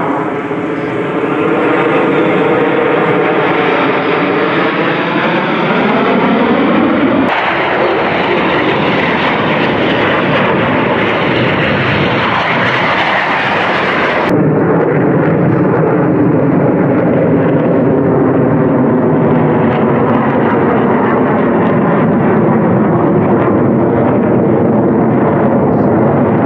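Jet engines of USAF Thunderbirds F-16 Fighting Falcons running loud overhead during an aerobatic display. The roar has a sweeping, phasing tone that rises and falls as the jets pass, and the sound changes abruptly twice, about 7 and 14 seconds in.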